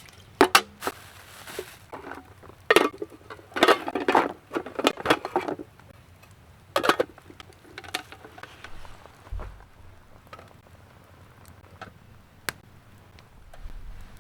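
A blade working wood while a kuksa is carved: a series of irregular chopping and cutting strokes in clusters, thinning out to a few scattered clicks in the second half.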